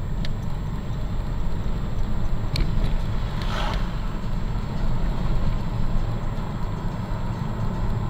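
Steady low rumble of a car's engine and road noise, heard from inside the cabin. There are a couple of faint clicks, and a brief hiss about three and a half seconds in.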